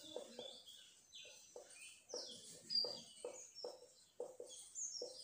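Small birds chirping faintly, many short falling high chirps, over the short scratchy strokes of a marker writing on a whiteboard.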